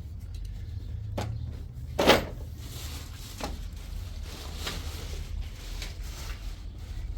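A few sharp knocks or clatters, the loudest about two seconds in, over a steady low hum.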